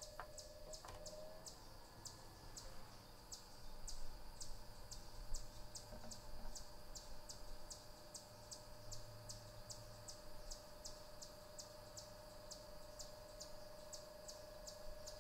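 Ozonics HR230 ozone generator running in boost mode: a faint, steady fan hum with a constant whine, its pitch settling about a second in. A high, regular ticking chirp repeats about three to four times a second over it.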